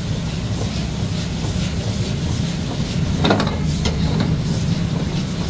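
Gas wok burner running with a steady low rush under chicken sizzling in an iron wok, and a metal ladle scraping and knocking against the wok a few times, most sharply a little after three seconds in.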